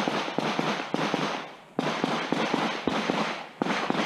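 Rapid string of pistol shots at a practical-shooting course, fired in quick pairs and short clusters with brief pauses between. Each shot has a short echoing tail.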